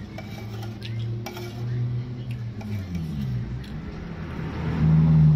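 A metal spoon clinks lightly against an enamel soup bowl a few times. Under it runs the low drone of a motor, which dips in pitch about halfway through and swells loudest near the end.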